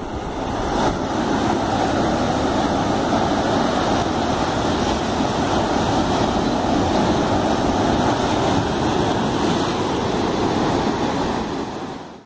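Steady rush of sea surf, waves breaking in foam over a rocky shore, fading out at the very end.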